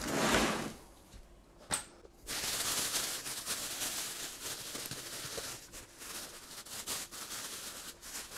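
Thin plastic wrapping crinkling and rustling as it is pulled off an outboard motor, continuous from about two seconds in, after a brief rustle and a single click.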